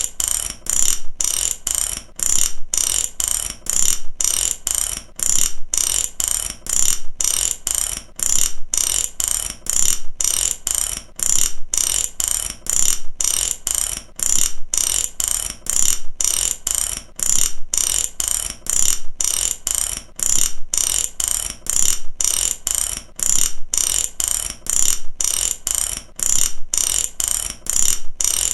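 Ratchet wrench being worked back and forth, its pawl clicking in quick runs of clicks that repeat steadily without a pause.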